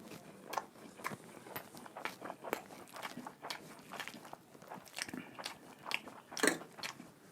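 A person chewing and biting food close to the microphone: wet mouth sounds broken by irregular crunchy clicks, several a second, with one louder bite about six and a half seconds in.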